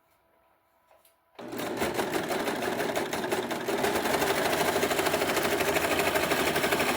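A serger (overlocker) threaded with three threads starts up about a second and a half in and stitches steadily at speed, a fast, even mechanical rattle, sewing a test seam.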